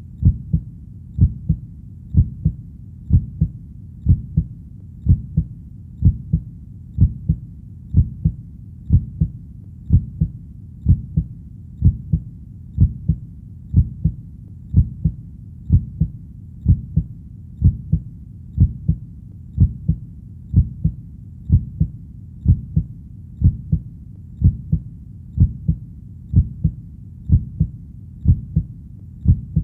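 Heartbeat: a steady, low double thump (lub-dub) repeating about once a second, evenly throughout.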